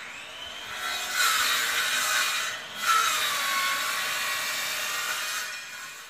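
Power saw cutting into a tree branch: a high whine that sags in pitch as the blade bites, breaks off for a moment about two and a half seconds in, then cuts again and winds down near the end.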